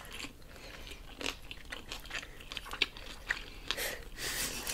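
Close-up chewing of breaded chicken fries and a bacon cheeseburger: irregular wet mouth clicks and small crunches.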